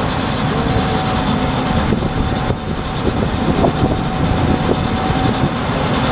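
Gleaner S98 combine harvesting corn with a 12-row Drago header, a steady mechanical drone with a thin constant whine over a dense, uneven low rumble.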